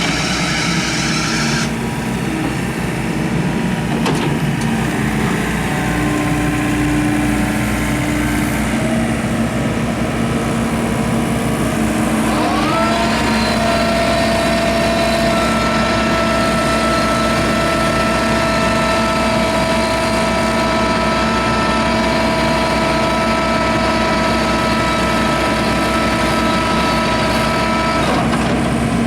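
Volvo EW55 wheeled excavator's diesel engine running steadily. About twelve seconds in, a whine rises and then holds one steady pitch until near the end.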